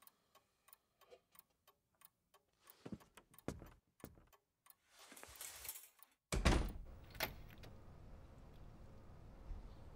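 Wall clock ticking about three times a second in a quiet room, with a few soft thumps and a swelling hiss. About six seconds in, a sudden loud clunk, then steady outdoor background noise with a sharp click about a second later.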